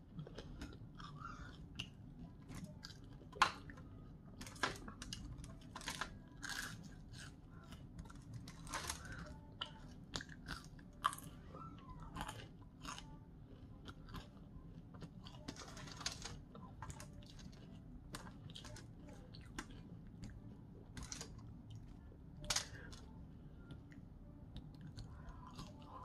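Close-miked chewing of crispy breaded chicken tenders and curly fries: soft, irregular crunching and wet mouth clicks, with two sharper crunches, one a few seconds in and one near the end.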